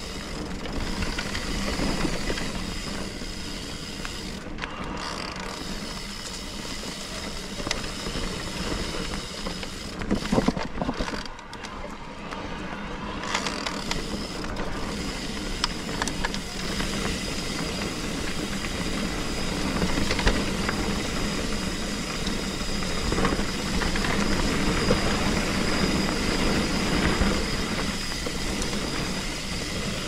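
Trek Rail 7 electric mountain bike being ridden on a dirt trail: steady tyre and wind rumble with drivetrain and frame rattles and clicks. A thin steady high whine drops out briefly about four seconds in and again for a couple of seconds around the middle.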